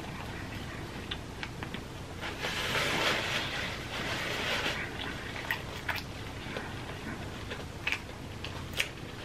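A person's breathy exhale lasting a couple of seconds, followed by scattered soft mouth clicks.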